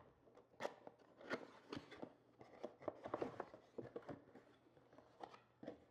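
Cardboard box being opened by hand, its lid lifted off a foam insert: a faint, irregular series of scrapes, taps and rustles of card.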